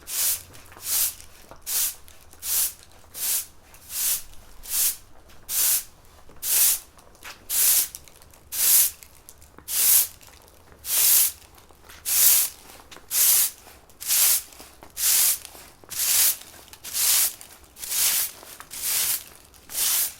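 Broom sweeping a floor in steady strokes, about one a second, each stroke a short bristly swish.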